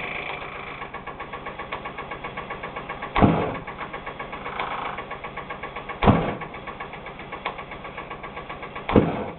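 Homemade pistonless vortex-combustion engine prototype running on a propane torch with spark ignition: an even rapid ticking, about seven a second, broken by three loud combustion pops about three seconds apart.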